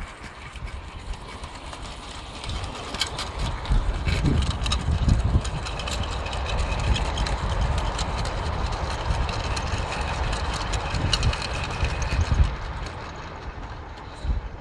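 0 gauge model BR Standard Class 9F train running along garden railway track: a rumble with many sharp clicks from the wheels on the rails. It grows louder a few seconds in, holds, then fades near the end as it passes.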